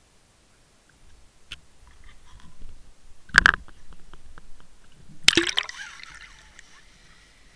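A camera rig on a line knocking about and dropping into the sea: scattered knocks, a sharp splash about three and a half seconds in, then a second splash a little after five seconds as it goes under, followed by bubbling.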